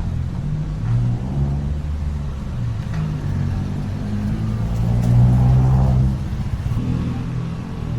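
A motor vehicle's engine running close by, a low rumble that swells about five seconds in.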